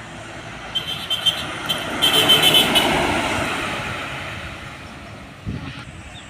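A truck passes by on the road, its noise rising to a peak about two to three seconds in and then fading away. A short, fluttering high-pitched tone sounds twice as it comes past.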